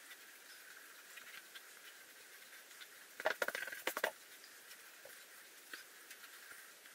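Faint scratching of a pencil on paper as an outline is sketched, with a short run of louder, rapid scratches about three seconds in.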